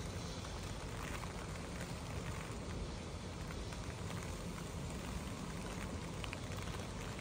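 Steady heavy rain heard from inside a car, with scattered single drops ticking on the car's body and glass.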